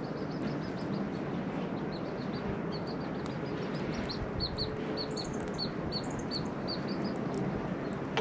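A small bird chirping: a run of short, high chirps, about two to three a second, through the middle of the stretch, over steady background noise.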